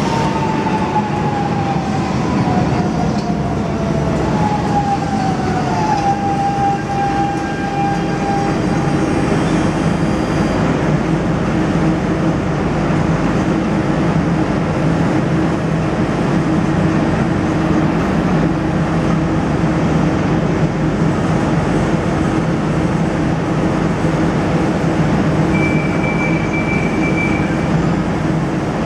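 Lisbon Metro ML99 train's motor whine falling in pitch as the train slows, settling on a steady tone and then the low, steady hum of the train standing at the platform. Near the end a high steady beep sounds for about two seconds.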